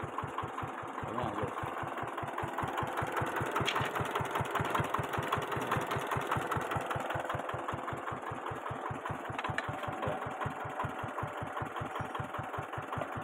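Small single-cylinder 6 HP diesel engine idling steadily, its firing strokes making an even, regular beat of several knocks a second.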